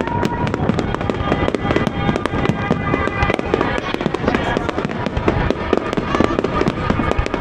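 Aerial fireworks bursting in a rapid, continuous string of bangs and crackles, many shells a second.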